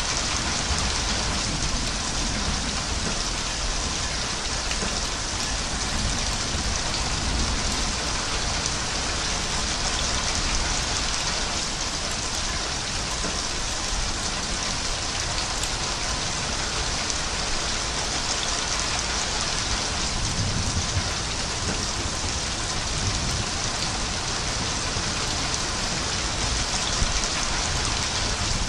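Steady, heavy rainfall: a dense, even hiss of raindrops falling on a surface.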